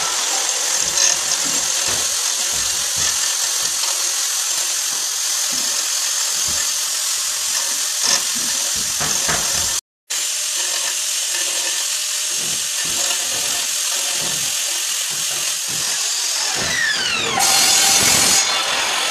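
Corded electric drill with a red core bit grinding through a ceramic tile: a steady, high-pitched grinding whine. Near the end the trigger is released and the motor's pitch falls as it spins down, followed by a brief louder rasp.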